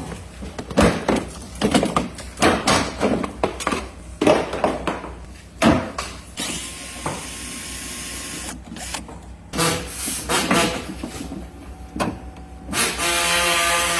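Hands working on a BMW windshield washer pump and its plastic reservoir: a run of irregular clicks and knocks, twice giving way to a few seconds of steady hiss.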